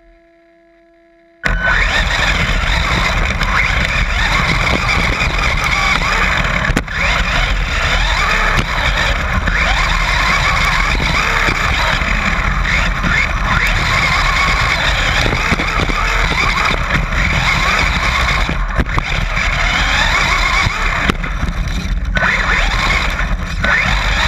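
After a faint steady hum, a Traxxas Slash 4x4 electric RC short-course truck cuts in loud about a second and a half in, heard from a camera mounted on the truck: a steady rush and rattle of its tyres and chassis running over loose gravel, with wind on the camera.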